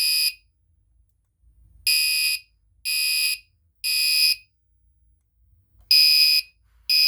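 Gentex Commander 3 fire alarm horn sounding in the temporal code 3 pattern, triggered from a pull station: loud, high-pitched half-second blasts in groups of three about a second apart, with a longer pause between groups. The end of one blast is heard first, then a full group of three, a pause, and two more blasts near the end.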